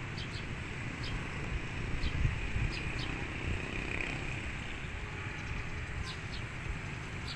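Distant street traffic under a low rumble, with short high bird chirps now and then.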